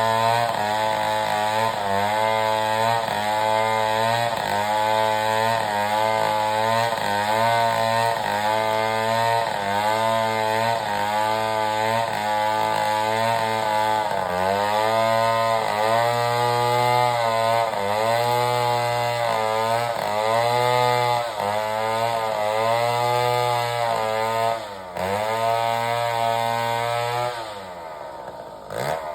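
Sawmill's engine-driven saw running hard, its pitch dipping and recovering in a steady rhythm as the blade takes and sheds load, about once a second at first and then every two seconds or so. Near the end it sinks lower and quieter for a couple of seconds, then picks up again.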